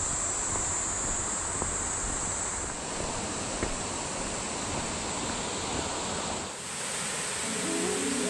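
Steady rushing of flowing water, with a shrill high drone of insects that fades about three seconds in. About six and a half seconds in it cuts to a brighter, fuller rush of water at a waterfall, and music begins near the end.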